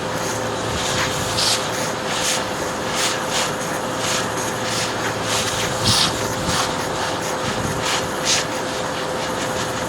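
Small Bosch vacuum cleaner running steadily, with a constant motor whine and rushing air, sucking at a clog in a vacuum's airpath that does not clear. Many short clicks and knocks sound over it throughout.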